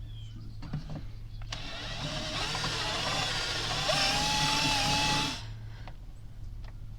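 Power drill running for about four seconds, enlarging a freshly drilled hole for wiring; about four seconds in a whine rises in pitch and holds, then the drill stops abruptly. A few sharp clicks come before and after it.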